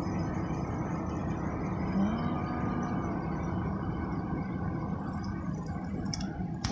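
Unbalanced three-armed fidget spinner whirring as it spins between the fingers, over a steady low hum inside a car.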